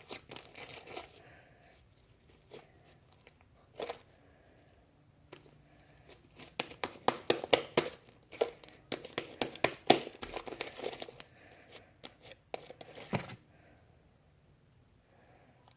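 Sticky homemade slime being kneaded and pulled by hand, making quick crackling, tearing and popping sounds, thickest in the middle and dying away a couple of seconds before the end. The slime is still sticky and clinging to the hands, short of activator.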